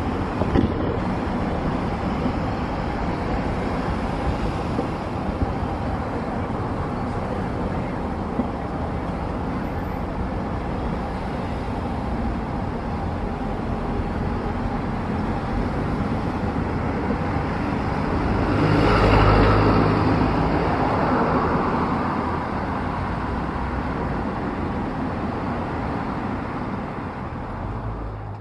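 Steady outdoor vehicle noise. It swells as a vehicle passes about two-thirds of the way through, then settles back.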